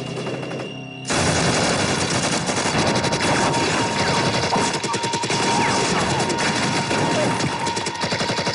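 Heavy gunfire in a firefight: rifle and submachine-gun shots break out suddenly about a second in and go on as a dense, overlapping barrage.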